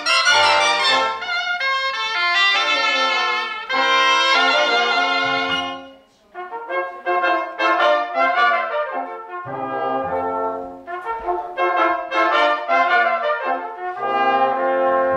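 A cobla, the Catalan sardana band of tenoras, tibles, trumpets, trombone and fiscorns, playing a sardana. The melody moves in phrases, with a short break about six seconds in before the band comes back in.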